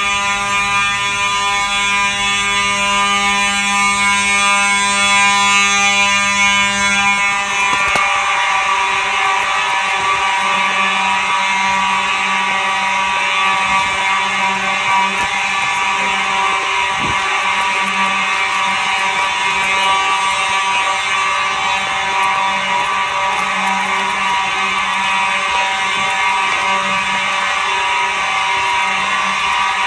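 Simplex fire alarm horns sounding without pause during a signal test: a loud, steady buzzing blare. About eight seconds in, the sound turns harsher and rougher.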